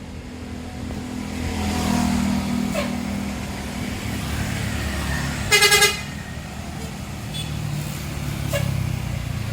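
Tour bus engine running as the bus pulls past, with a short, loud blast from its horn about five and a half seconds in: one pitch, stuttered about four times in quick succession.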